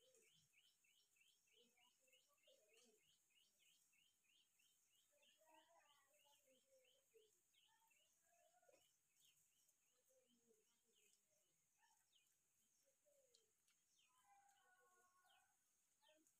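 Very faint bird calls: a rapid run of short, high chirps, about five a second, that fades out about halfway through, with scattered lower calls around it.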